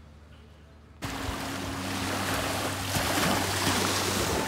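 Small waves washing onto a sandy beach, with wind on the microphone and a steady low hum underneath; the sound begins suddenly about a second in, after a quiet start.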